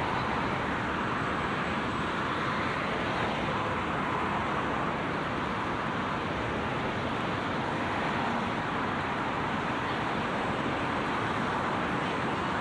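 Steady city road traffic, cars and double-decker buses passing on a multi-lane street, blending into an even, unbroken noise.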